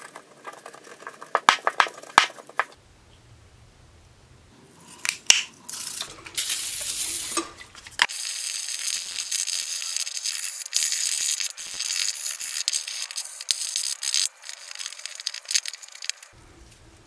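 A bristle brush scrubbing the body of an antique cast-iron hand plane coated in cleaner: a steady scratchy scrubbing from about eight seconds in that stops shortly before the end. Before it, light clicks and rubbing as the plane is wiped with a rag and handled.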